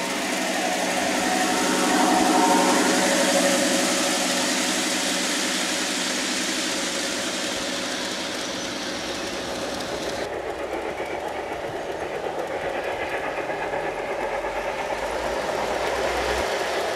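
Large-scale garden-railway model train running on outdoor track: wheels clattering and rumbling as it crosses a steel trestle bridge, loudest about two to three seconds in. About ten seconds in the sound changes abruptly to a duller, evenly pulsing run of another model train on the track.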